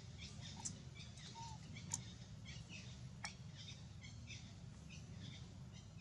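Faint background of small birds chirping, many short high calls scattered throughout, over a steady low rumble. A few sharp clicks cut in, the loudest about two seconds in.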